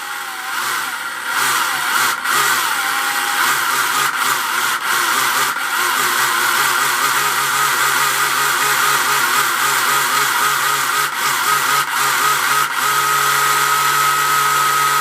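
Electric motor of a Carrera Digital 1/32 slot car whining at speed, its pitch wavering up and down as it accelerates and slows, then holding one steady pitch near the end.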